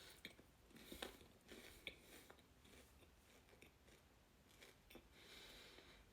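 Faint, scattered crunches and clicks of a crisp rice crispy treat being bitten and chewed.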